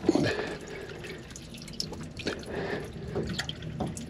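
A stream of water spurting from the opened vent fitting of a PSS dripless shaft seal and splashing unevenly into the bilge. The water keeps coming even though the valve has been closed, which is called unusual.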